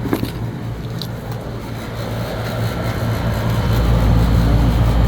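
Air conditioning unit running with a steady electrical hum. A few light clicks come in the first second, and about three and a half seconds in a deeper low hum swells up and holds.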